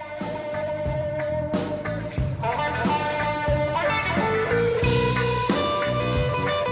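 Background music led by a plucked guitar, with sustained notes under a picked melody, coming in at the start.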